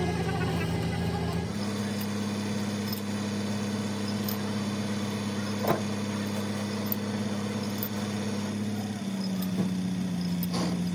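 An engine running steadily with a constant hum. Its pitch steps up about a second and a half in and drops slightly near the end, with a light click or knock about halfway through.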